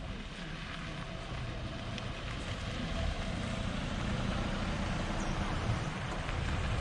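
Car passing slowly and close by on a dirt road. The engine and tyre noise grow louder as it nears.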